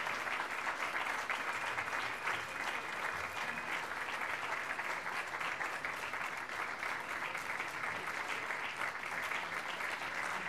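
Audience applauding steadily: many hands clapping together without a break.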